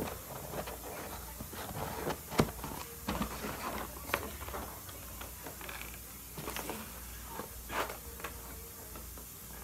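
Cardboard pizza boxes being handled, slid and lifted, with scattered rustles and short knocks; the sharpest knock comes about two and a half seconds in.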